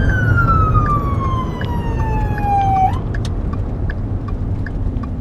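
Emergency-vehicle wail siren heard from inside the cab of a fire battalion chief's Ford F-150, sliding slowly down in pitch and then cut off suddenly about three seconds in. Low engine and road rumble carries on underneath, with a light regular ticking about twice a second.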